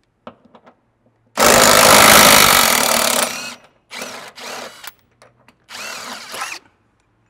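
RIDGID cordless impact wrench with an 18 mm socket, hammering a front body bolt loose in one loud rattling burst of about two seconds. Then come two shorter runs of under a second each, the motor whine rising and falling as the freed bolt spins out.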